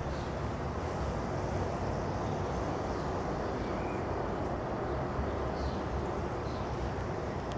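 Steady low rumble of distant city traffic, an even background noise without any distinct events.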